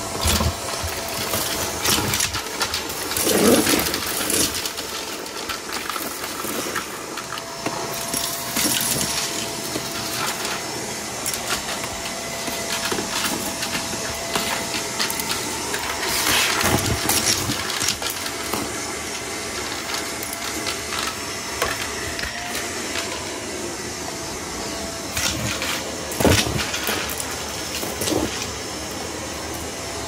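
Hoover vacuum cleaner running with a steady motor whine, picking up test debris that rattles and clicks through it, with a few louder bursts of clattering along the way.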